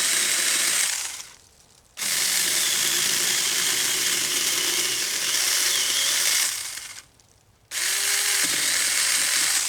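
Saker mini cordless electric chainsaw running and its chain cutting into a limb to make a notch, in three long bursts broken by two short pauses, about one and a half and seven seconds in.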